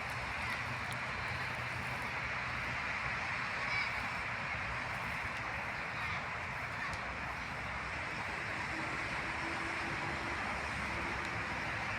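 Steady outdoor background noise: an even hiss and rumble with no clear single event, and a faint chirp about four seconds in.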